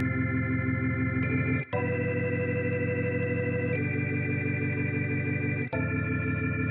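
Music of sustained organ-like keyboard chords, the chord changing about every two seconds, with two brief cut-outs at the changes.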